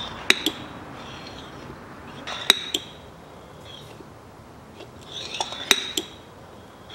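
Hand oil pump forcing gear oil through a tube into the front differential: sharp metallic clinks in pairs with each stroke, three strokes about two and a half seconds apart, each led in by a short hiss.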